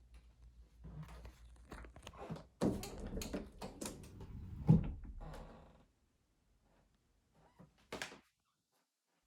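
A run of knocks, clicks and thuds, loudest a single thump nearly five seconds in, then near silence broken by one short sharp knock about eight seconds in.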